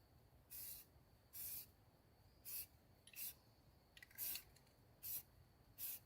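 Aerosol spray-paint can sprayed in short squirts: seven brief hisses, roughly one a second.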